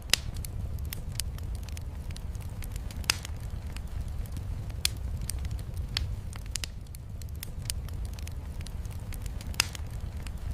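Wood fire crackling in a fireplace, with sharp pops every second or two, over a steady low rumble of heavy rain.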